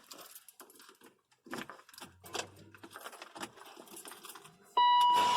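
Scattered light clicks and rattles, then near the end a steady electronic warning tone from the Range Rover's dashboard comes on suddenly, as the ignition is switched on before the engine is started.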